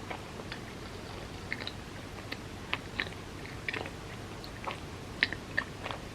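Close-up eating sounds: chewing of bread with soft cream cheese, with irregular wet smacks and clicks of the mouth, the loudest a little past five seconds in.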